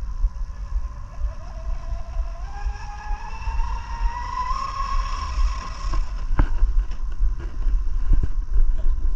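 Twin brushless motors of a Pro Boat Miss Geico 36-inch RC catamaran whining as the boat accelerates on a full-throttle speed run. The pitch climbs steadily for about four seconds, then levels off and fades. A steady low rumble runs underneath.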